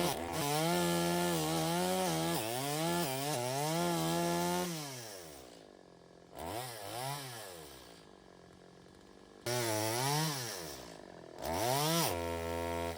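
Gas chainsaw engine revving high and wavering as it cuts for the first few seconds, then dropping to idle about five seconds in. It is blipped briefly, idles, and is revved up twice more near the end.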